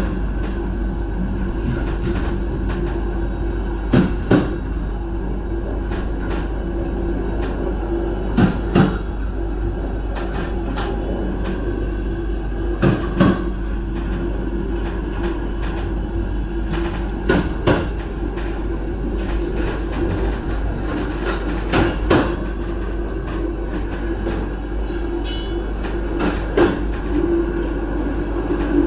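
Passenger train running with a steady rumble. Its wheels click over rail joints in pairs, a clickety-clack about every four and a half seconds.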